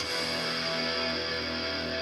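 Guitar-based music playing through a portable Bluetooth speaker, being played loud for a volume test.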